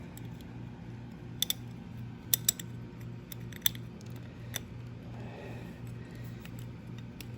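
Sharp metallic clicks and taps from hand tools and small metal parts, about half a dozen spread unevenly over several seconds, during work on a motorcycle's carburetors.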